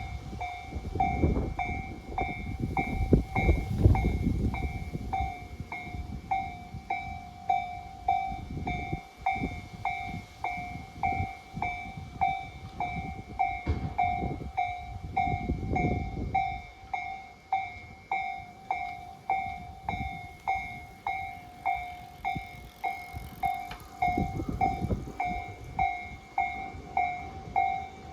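Railway level-crossing alarm ringing: one bell-like tone struck over and over in a steady, even rhythm. A passing train rumbles underneath, loudest about four seconds in.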